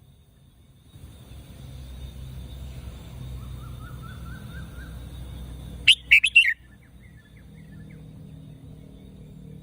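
Red-whiskered bulbul singing one short, loud phrase of quick notes about six seconds in. A faint run of quick rising chirps comes before it, and a few faint notes follow.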